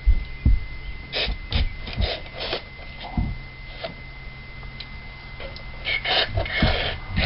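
Short hissing squirts of aerosol carburetor cleaner sprayed through a plastic straw nozzle: four quick squirts a second or so in, then a longer spray near the end, with a few dull knocks from handling the can and parts.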